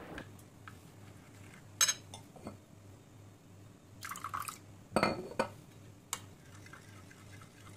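Metal spoon clinking a few times against a ceramic bowl while stirring curd (yogurt), with a short splash of water poured from a glass into the bowl about four seconds in.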